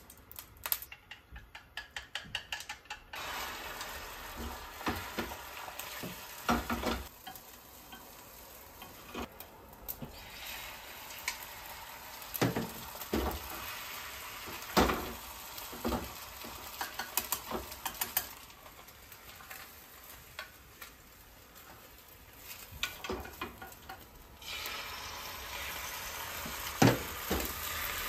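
A gas stove's igniter clicks rapidly for about the first three seconds. Then egg sizzles steadily in an oiled rectangular tamagoyaki pan, and wooden chopsticks now and then knock and scrape the pan as the omelette is rolled. The sizzle grows louder near the end.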